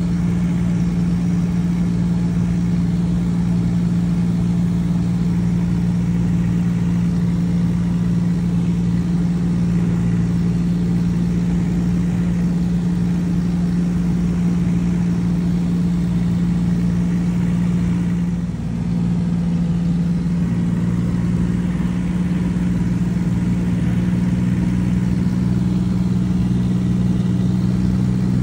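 Light propeller aircraft's engine running steadily, heard from inside the cabin as an even, constant-pitched drone, with a brief dip about two-thirds of the way through.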